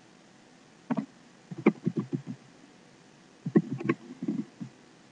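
Computer keyboard typing: a single keystroke, then two short runs of keystrokes as a command is typed and entered.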